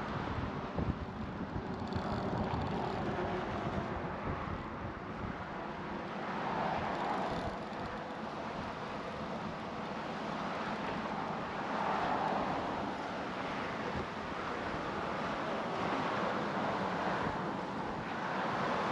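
Wind buffeting the microphone, with cars passing on the bridge roadway; their tyre noise swells and fades about three times.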